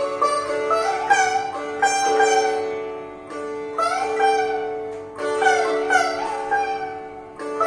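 Solo sitar played in Indian classical style: plucked melody notes that slide up and down in pitch (meend), each struck note swelling and fading over a steady ringing drone from the other strings.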